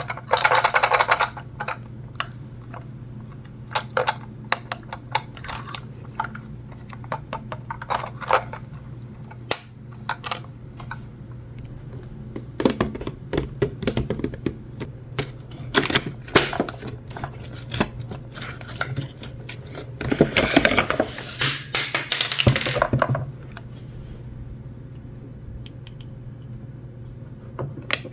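Small plastic toy pieces clicking and tapping as they are handled and set down, with two longer stretches of scratchy handling noise, one at the start and one about twenty seconds in, over a steady low hum.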